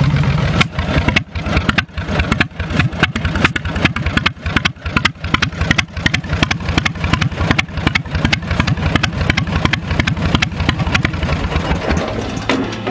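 Twin-cylinder engine of a 1983 Yardman MTD garden tractor, which drops from a steady, faster run to a low idle right at the start, then idles with uneven firing pulses.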